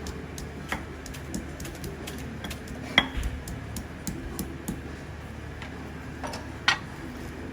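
Garlic being crushed in a stone mortar: irregular clicks and knocks of the stone pestle, with a louder knock about three seconds in and another near the end, over a steady low hum.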